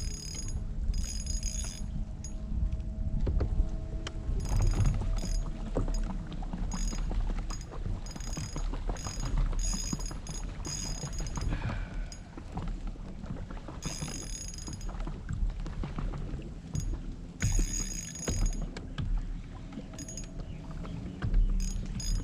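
Fishing reel buzzing in many short runs, line being worked against a big catfish on the hook, over a steady low rumble of wind on the microphone and water against the kayak.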